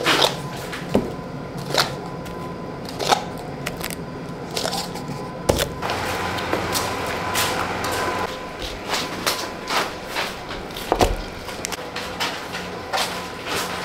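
Workshop handling noise: an irregular series of sharp knocks and clatters as round clock boards are set down and plastic cups placed on a table, over a steady hum.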